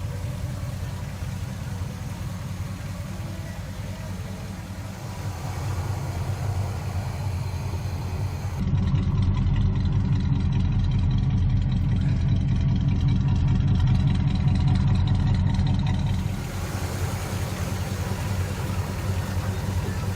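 Pontiac 400 V8 of a 1976 Firebird Formula running with a low, steady exhaust note. It grows louder for about seven seconds from a little under halfway in, then settles back.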